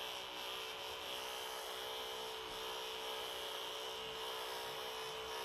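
Electric pet clippers running with a steady hum while they cut matted fur from a cat.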